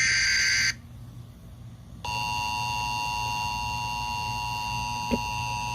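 Emergency Alert System broadcast tones. A short burst of SAME header data tones stops within the first second. After about a second of quiet, the EAS attention signal starts about two seconds in: two steady tones of 853 and 960 Hz sounding together, the alert that comes before the spoken tornado warning message.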